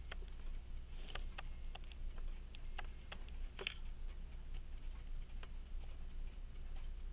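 Faint, irregular small metallic clicks as a pocket watch's minute hand is tried on its square fitting and handled with tools.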